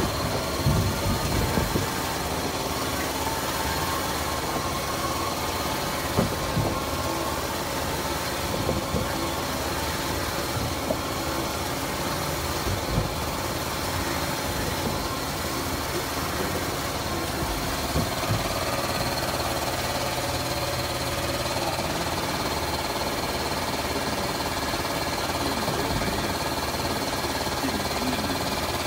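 Automatic toilet paper band saw log-cutting machine running steadily, with a steady high whine over its mechanical noise and occasional short knocks.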